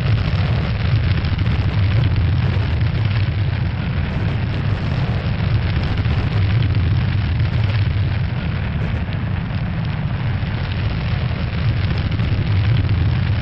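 Sound-effect roar of a spacecraft's entry capsule plunging through the atmosphere: a steady, heavy low rumble with a hiss over it.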